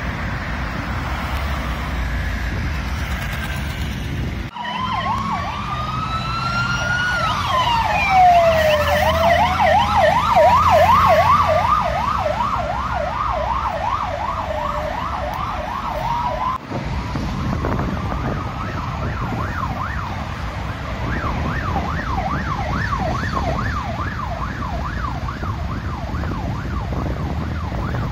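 Road traffic and wind rumble, then from about four seconds in an emergency vehicle's electronic siren sounds: a slow rising and falling wail that switches to a fast yelp. After a break about halfway, the wail and the fast yelp come again.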